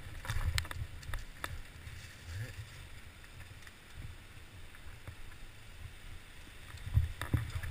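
Downhill mountain bike rattling down a rough dirt trail, heard from a helmet camera: a steady low rumble from the ride, with sharp clacks as the bike jolts, several in the first second and a half and two loud knocks near the end.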